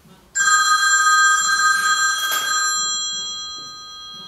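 A bell struck once, with a bright ring of several high tones that starts about half a second in and slowly fades away over about four seconds.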